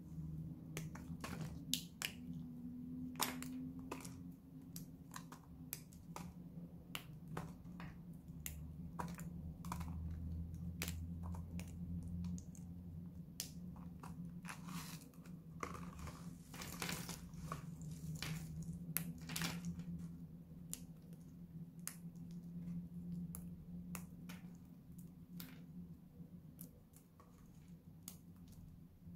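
Brittle flakes of dry pink Lux soap snapped and crumbled between the fingers, the thin shards cracking and clicking irregularly as they break and drop onto the pile, at times in quick clusters. A faint low hum sits underneath.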